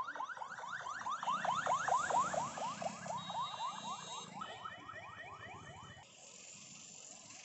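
Emergency vehicle siren yelping: quick rising sweeps about four a second. It grows louder to about two seconds in, then fades away.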